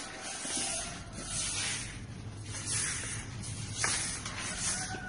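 A broom sweeping volcanic ash off a tiled floor: repeated swishing, scraping strokes of the bristles, about one a second, with a sharp click near the end.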